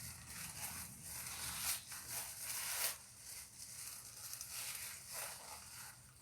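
Gift packaging being unwrapped: crinkling and rustling in several uneven bursts, loudest about two to three seconds in.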